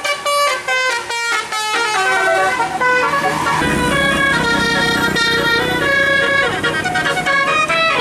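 Basuri musical bus air horn playing a melody of quick, stepped held notes. About three and a half seconds in, a low rumble joins underneath.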